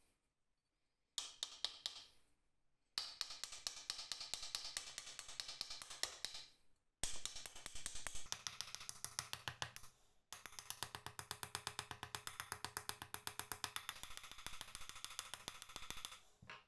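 A hand tool scraped back and forth inside a small metal camping-stove burner cup in quick strokes, about eight a second, in four runs with short pauses; the thin metal cup rings faintly under the strokes.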